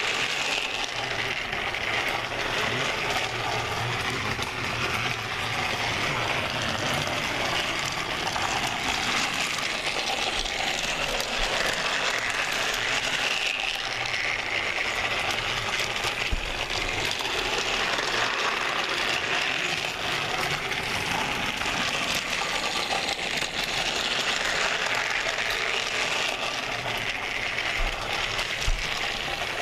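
Battery-powered motorized toy train engine running steadily on plastic track, its small motor and gearbox buzzing with a continuous clicking rattle of wheels over the track joints.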